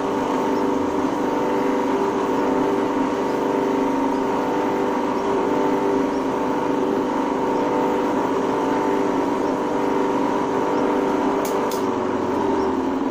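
Small electric grinder running steadily with a constant motor whine, used to sharpen an electric planer's blade held in a jig.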